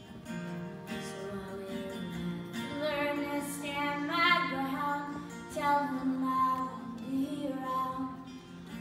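Live acoustic music: a woman singing long, wavering held notes over acoustic guitars.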